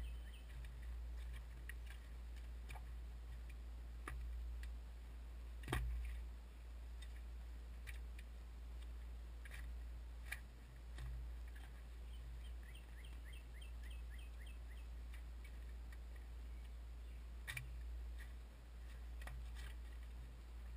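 A steel shovel blade being driven into packed dirt and lifting soil while digging a ditch, heard as scattered knocks, scrapes and clicks; the sharpest strike comes about six seconds in.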